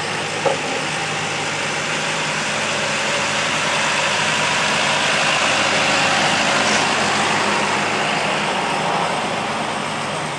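Tractor engine running steadily at a tractor pull, growing louder toward the middle and easing off near the end. A brief knock about half a second in.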